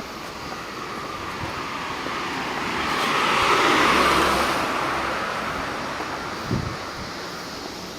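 A car passing by on the road: its tyre and engine noise grows louder, peaks about halfway through, then fades away.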